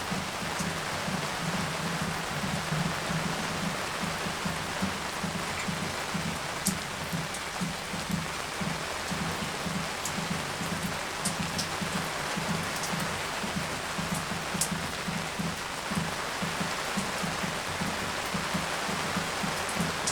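Steady spring rain shower: a dense, irregular patter of raindrops striking surfaces, over a constant hiss of falling rain, with occasional sharper single drips.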